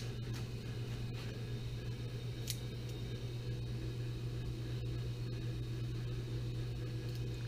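Steady low mechanical hum from a machine running in the room, with a faint click about two and a half seconds in.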